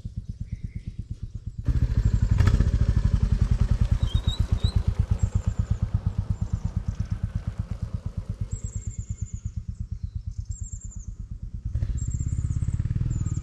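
Royal Enfield Classic 350's single-cylinder engine running with a steady, even exhaust beat, suddenly louder from about two seconds in, easing off in the middle and louder again near the end. Birds chirp in the background in the second half.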